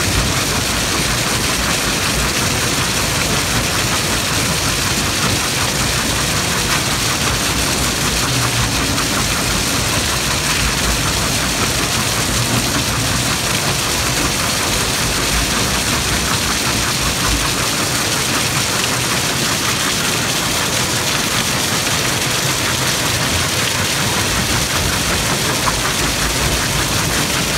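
Yongwon Super Cone SP500 cone crusher running at 800 rpm while rock is fed into it and crushed: a loud, steady, even noise with no pauses.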